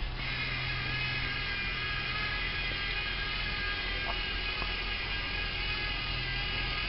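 Lego Mindstorms EV3 robot's electric motors and gears whirring steadily as it drives along, with a thin high whine over a low hum.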